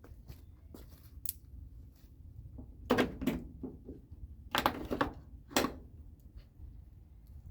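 Scattered knocks and clatter, loudest in two bursts about three and five seconds in, from handling a tail-light housing that has been taped onto a wagon.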